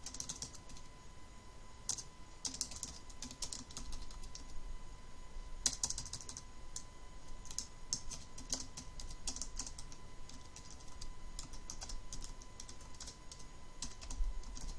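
Computer keyboard being typed on at an unhurried pace: irregular runs of key clicks broken by short pauses.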